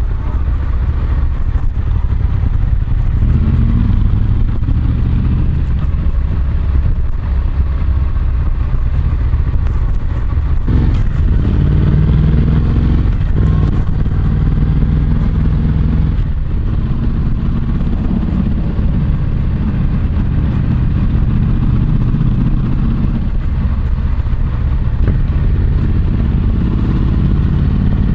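Yamaha MT-07's parallel-twin engine running through an SP Tadao Power Box full exhaust system while riding at low speed, picked up close by a lapel microphone in the rider's back jeans pocket. The exhaust note rises and falls a few times as the throttle opens and closes.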